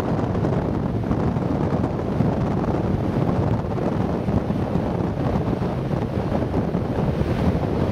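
Wind buffeting the camera's microphone: a steady, low rushing noise.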